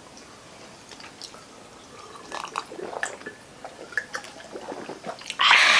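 Several people drinking from glasses: faint scattered sips, swallows and liquid sounds, then a louder breathy rush near the end.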